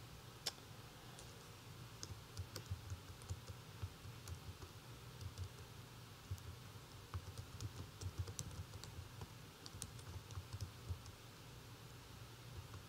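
Typing on a computer keyboard: faint, irregular key clicks in quick runs, over a low steady hum.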